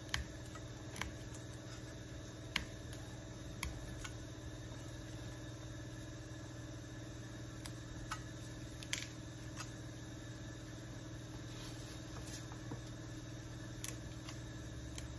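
A steady low mechanical hum, with scattered short snaps and ticks as ugu (fluted pumpkin) leaves are plucked from their stalks and dropped into a stainless-steel bowl.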